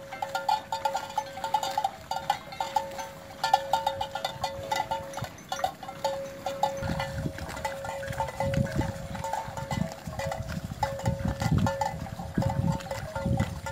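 Bells on grazing water buffaloes clanking continuously in a dense, jangling clatter. From about seven seconds in, irregular low thuds join it.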